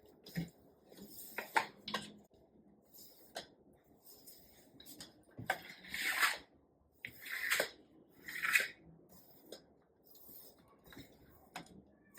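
Small objects being handled by hand: scattered light clicks and taps, with a few brief rustles about halfway through.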